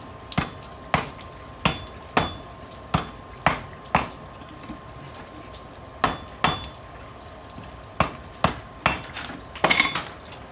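Hand hammer striking a hot railroad spike on a steel anvil to knock off about half an inch of its end. About a dozen sharp blows with a short ring, in uneven bursts with a pause about midway.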